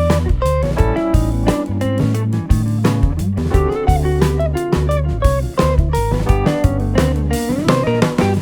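Background music: a plucked guitar melody over bass and a steady drum beat.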